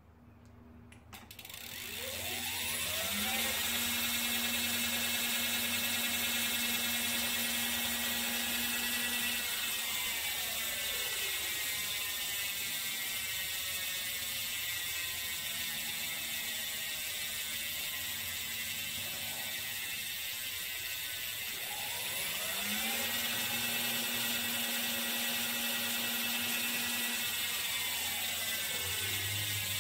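Road-bike friction drive motor spinning the rear wheel up with a rising whine, running at a steady pitch, then cutting out and winding down. The wheel coasts with the freewheel ticking, then the motor spins it up and down a second time.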